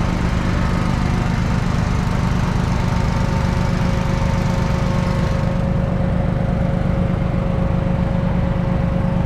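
Engine of farm machinery running steadily at a constant speed, with a deep, even hum; its higher hiss eases a little over halfway through.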